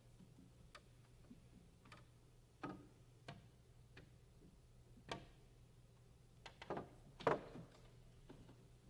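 Soft, widely spaced taps inside an open grand piano, with a thin stick striking the strings. Each tap has a brief ringing tail, and the loudest comes near the end, all over a faint steady hum.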